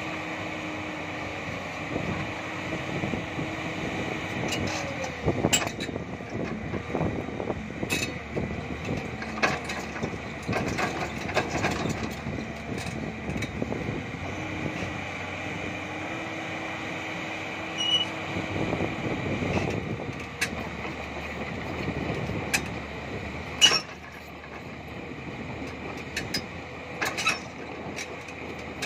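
JCB crawler excavator's diesel engine and hydraulics working, the hum shifting in pitch as the arm and bucket move under load. The bucket scrapes through loose gravel, with scattered sharp clanks and knocks of steel on stone.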